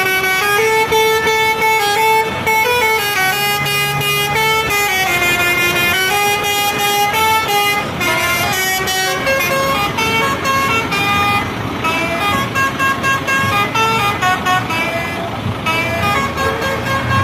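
Lorry musical air horns playing a tune: a string of loud held notes with many overtones, stepping up and down in pitch every half second or so, the melody changing about halfway through.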